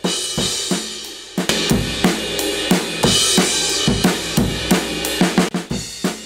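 Programmed drum-kit loop of kick, snare, hi-hats and cymbals, played back through compressor and saturation plugins (United Plugins FirePresser and Kazrog True Iron). It sounds dense, with a bright cymbal wash and the hits running into one another.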